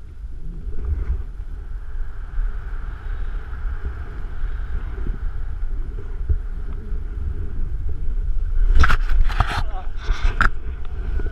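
Wind rumbling on the microphone while flying under an open parachute canopy, with a short run of loud rustles and knocks close to the end as the jumper comes in to land.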